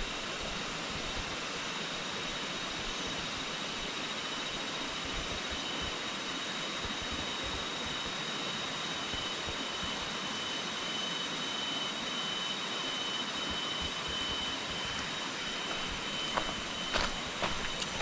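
Steady rushing of a river rapid, an even hiss of water with a thin, steady high-pitched tone above it. A few sharp clicks sound near the end.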